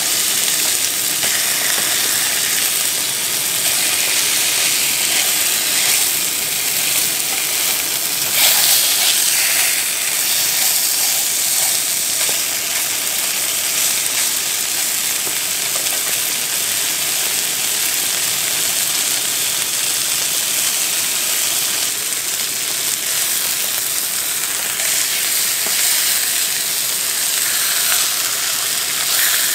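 Thick slices of pork belly sizzling steadily in a hot frying pan, the sizzle swelling briefly about eight seconds in.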